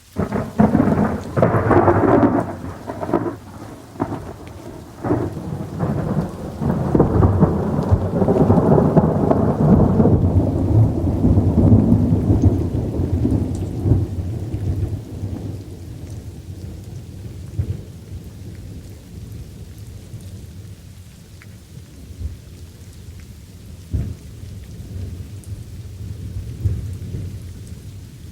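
Thunder rolling and crackling over light rain, loudest in the first ten seconds or so, then fading to a distant rumble while the rain patters on steadily, with a few sharp cracks later on.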